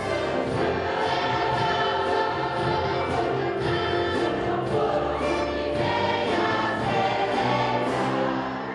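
A large choir of adult and children's voices singing a Christmas cantata, accompanied by a concert band of brass and woodwinds.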